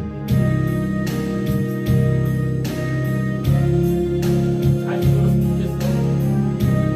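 Instrumental backing music for a Korean ballad, with guitar and keyboard over sustained bass notes and a steady beat.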